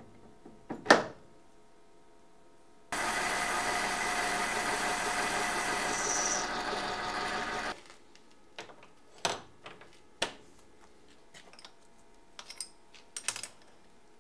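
A sharp metal clank about a second in, then a motor-driven machine running steadily for about five seconds, starting and stopping abruptly, followed by scattered light metal clicks and knocks of tool and wrench work on steel parts.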